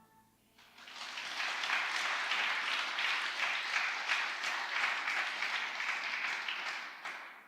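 Audience applauding, starting just under a second in and cutting off abruptly near the end.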